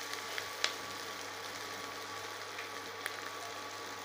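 Chopped shallots and ginger-garlic paste sizzling steadily in hot oil in an aluminium pot, with a few faint pops from the pan, early on and about three seconds in.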